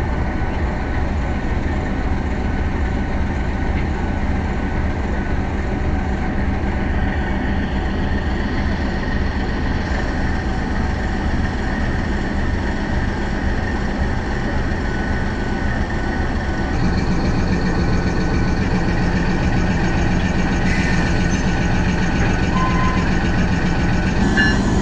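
GE U20C (GEU-20) diesel-electric locomotive's twelve-cylinder diesel engine idling with a steady low drone and held tones, growing a little louder about two-thirds of the way through.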